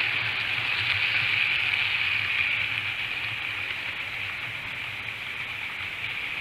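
Model train running along the layout's track: a steady rushing noise of wheels and motor over a low hum, easing off gradually toward the end.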